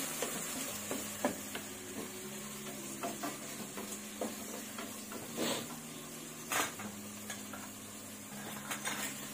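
Wooden spatula stirring onions, tomatoes and green chillies frying in oil in an aluminium pressure cooker, over a steady soft sizzle. A few sharper knocks of the spatula against the pot stand out, the loudest near the middle.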